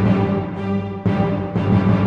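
Music soundtrack: a driving theme with deep held bass notes and a beat about twice a second.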